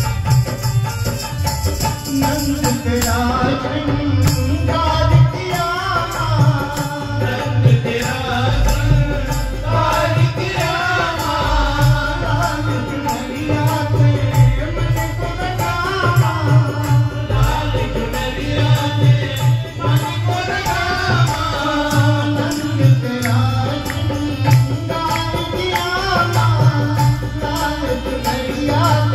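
A devotional bhajan performed live: a harmonium melody with a dholak drum beat and a jingling hand tambourine, and a man singing over them.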